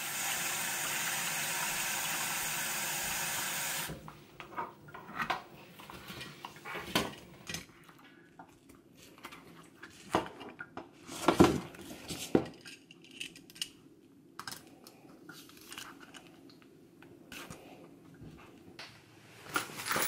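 Kitchen mixer tap running water into a plastic hydration bladder for about four seconds, then shut off abruptly. After that, scattered crinkling, clicks and a few sharper knocks of the plastic bladder being handled and sealed and then packed into a backpack.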